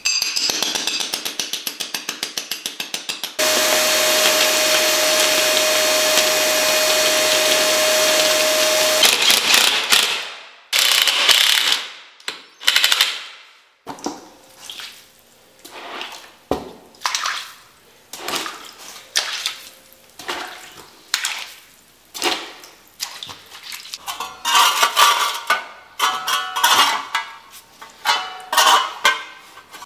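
A fast rattle for the first few seconds, then a loud steady mechanical noise with a fixed hum until about nine seconds in. After that come separate short sloshing and scraping strokes: a tiling sponge worked in a bucket of water, and wet mortar spread with a steel trowel.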